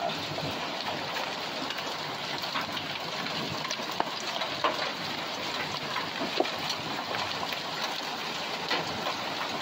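Heavy rain falling on a lawn, a concrete walk and puddles: a steady hiss with scattered sharp taps.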